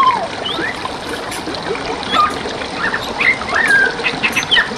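Steady rushing and trickling of a flowing forest stream, with songbirds giving many short whistled and chirped notes that rise and fall over it.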